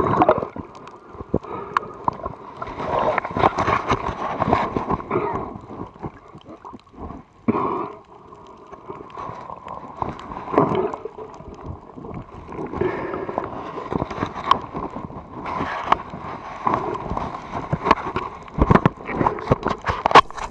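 Muffled underwater sound through an action camera's sealed dive case: water gurgling and sloshing in irregular swells, with scattered small clicks and knocks.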